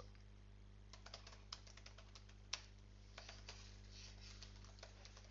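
Faint typing on a computer keyboard, irregular keystrokes in quick runs and pauses, over a steady low electrical hum.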